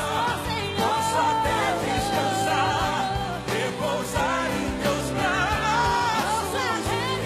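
Live band performing a Portuguese-language gospel ballad, with a lead vocal over drums and band. The voice holds one long note from about a second in.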